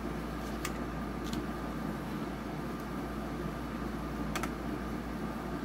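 Steady low machine hum of background room noise, with a few faint light clicks of small objects being handled on the bench.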